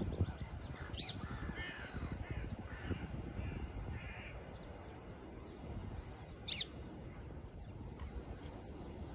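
Lakeside ambience: steady low wind noise with lapping water under several birds calling, mostly short chirps. Two sharper calls stand out, one about a second in and one about six and a half seconds in.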